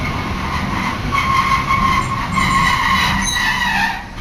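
Sapporo streetcar running, heard from inside the car: a low rumble under a high-pitched metallic squeal that holds, dips slightly in pitch near the end and then stops.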